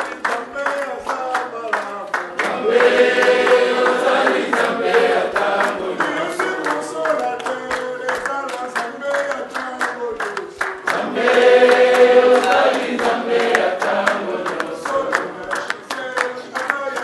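Congregation singing a hymn together to steady hand-clapping. The singing swells louder twice.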